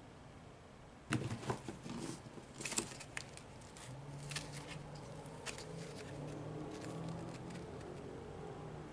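Sharp clicks and knocks of plastic parts being handled while a cabin air filter is swapped, starting about a second in and thinning out after a few seconds. A faint low hum joins partway through.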